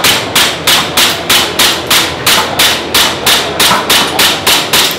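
Airsoft pistol fired in quick, steady succession, about four shots a second, during a timed speed-shooting run at a target array.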